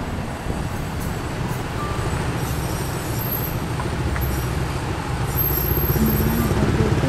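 A moving vehicle's engine and road noise, heard from inside the vehicle as a steady low rumble.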